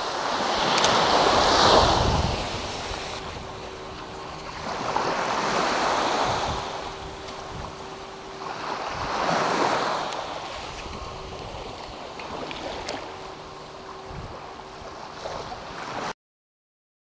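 Small waves breaking and washing up on a sandy beach, the surf swelling and fading every few seconds. The sound cuts off abruptly near the end.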